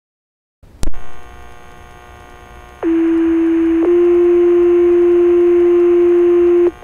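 Fire dispatch two-tone sequential page heard over a radio scanner. The radio keys up with a click and hiss, then one steady tone sounds for about a second and is followed by a second tone of slightly different pitch held for about three seconds. This is the alert tone that sets off the volunteer firefighters' pagers for a call.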